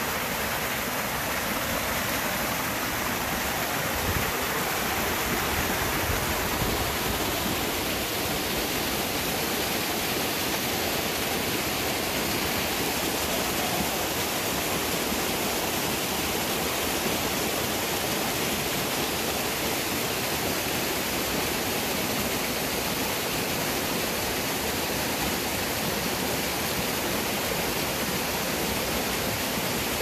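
Creek waterfall pouring down a rock chute close by: a steady, unbroken rush of falling water.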